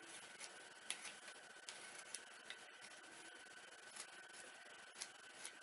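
Faint scrapes and small sharp clicks of a hand gouge paring cherry wood, a handful of light cuts spread through.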